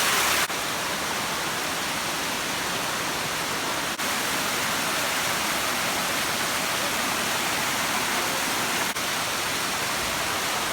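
Waterfall's water rushing steadily.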